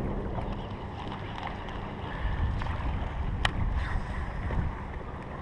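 Low wind rumble on a chest-mounted camera's microphone aboard a bass boat, swelling from about two seconds in, with one sharp click about three and a half seconds in.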